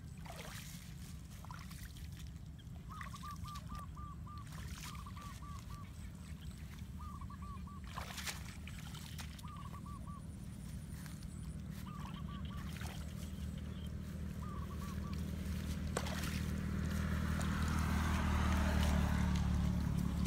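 A bird calling in short runs of quick, clipped notes, a run every couple of seconds. Under it a steady low engine hum grows louder toward the end, and there are a few sharp knocks.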